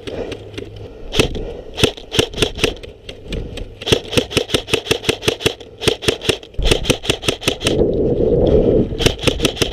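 Airsoft guns firing: sharp cracks in single shots and quick strings of several a second, spread through the whole stretch. A low rumbling noise joins about two thirds of the way in.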